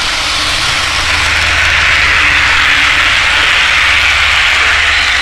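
Lionel 2-6-4 O-gauge model steam locomotive running, with a simulated steam-engine soundtrack played from a Bluetooth speaker in its tender: a steady hiss over a low rumble. The sound grows louder about a second in and drops suddenly near the end.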